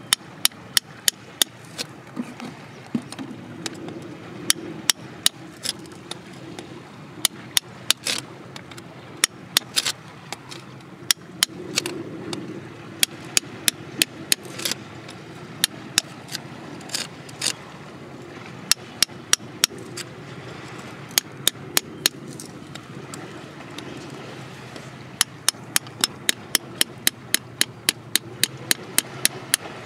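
A small hand tool tapping and picking at rock and grit, making runs of sharp clicks, sometimes about three a second. A steady low hum runs underneath.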